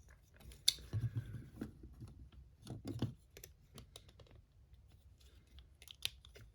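Plastic transforming action figure being handled and turned in the hands: a scatter of small plastic clicks and taps, the sharpest one under a second in.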